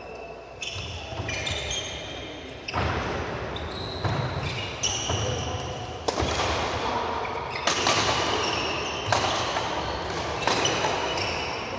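Badminton doubles rally: rackets smacking the shuttlecock about every one to two seconds, with shoes squeaking on the court mat between shots, echoing in a large hall.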